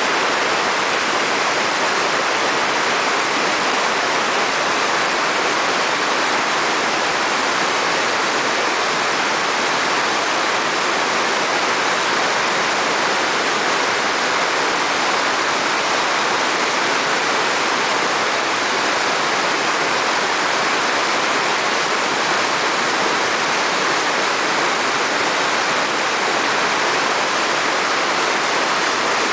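Whitewater rapid rushing steadily, river water pouring over a rock ledge into a churning, foaming hole.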